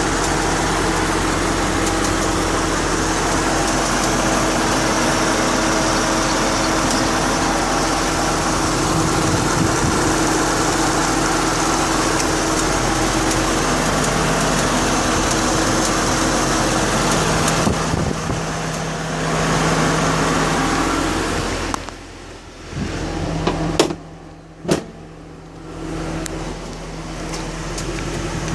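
2012 Mustang GT's Gen 1 5.0 Coyote V8 running, with the intermittent light 'BBQ igniter' or 'typewriter' tick. The dealer traced it to a cylinder fault: 'inherent cylinder geometry failure'. Around two-thirds of the way through the engine sound drops away, two sharp clicks follow, then it comes back.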